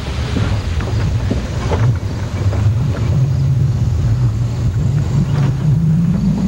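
Truck engine running as it drives over a rutted dirt track, its pitch climbing near the end as it speeds up, with a few knocks and rattles from the bumps.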